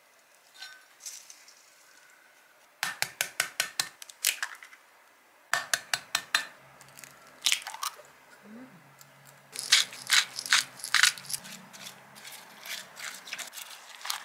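Eggs cracked one after another into a glass measuring jug, sharp taps of shell on glass, then chopsticks clicking against the jug as eggs and shredded cabbage are stirred. Quiet for the first few seconds, then a quick run of clicks.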